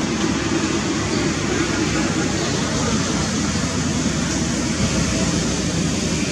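Steady rushing background noise with no distinct calls or knocks.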